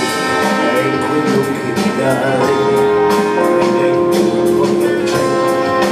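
Live band music in an instrumental stretch with no singing: a drum kit keeps a steady beat under long held notes.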